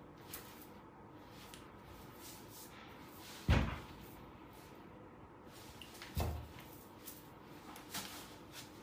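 Two thuds from a wooden wardrobe door being moved, about three seconds apart, with a few faint clicks between them.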